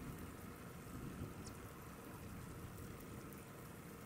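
Light rain falling on marsh water, a faint steady patter.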